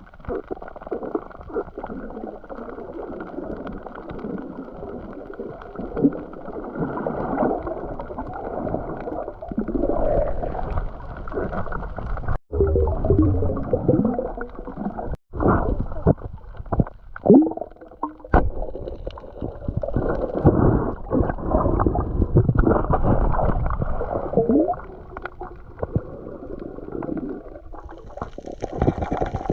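Muffled water sound, as heard through a waterproof camera housing underwater: irregular gurgling and bubbling with a few short glides in pitch. It cuts out twice, briefly, around the middle.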